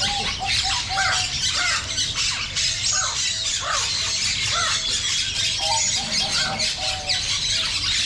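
Many caged birds calling at once: a string of short squawks and squeals that slide up and down in pitch, over a dense, unbroken high chirping.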